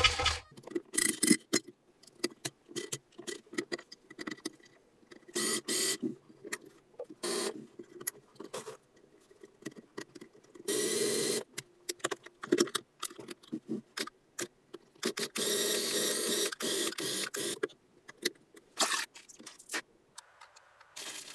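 Hands fitting Lego Technic parts onto a clear plastic container: a string of short plastic clicks and knocks, with a few longer scraping stretches midway.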